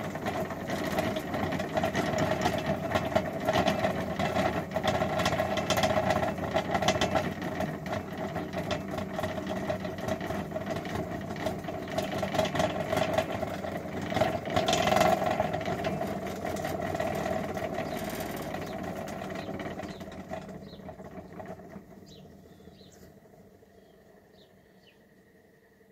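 Electric cream separator running, its motor and spinning bowl making a steady whir with a fast rattle. About three-quarters of the way through it winds down and fades away, leaving bird chirps.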